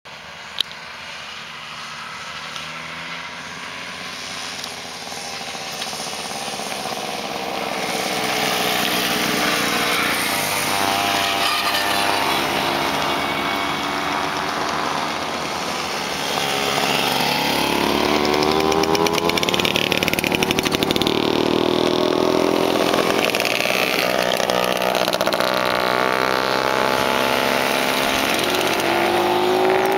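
Small two-stroke moped engines buzzing as several mopeds ride past one after another, the pitch rising and falling as each approaches and goes by, louder in the second half. A sharp click right at the start.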